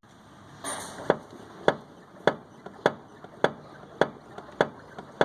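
Worn manual steering box of a 1995 GM Kadett knocking each time the steering wheel is rocked: sharp clicks repeating evenly, a little under two a second, starting about a second in. The knock is play in the box from its failed mounting bushings, which lets the box move.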